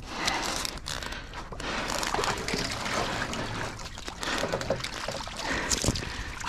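Water trickling and sloshing as it streams off a heavy wire-mesh fish trap full of fish that is being hauled out of the river.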